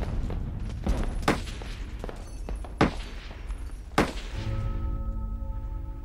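Film battle soundtrack: about five sharp gunshots ring out over a low rumble in the first four seconds, then music with long held notes comes in.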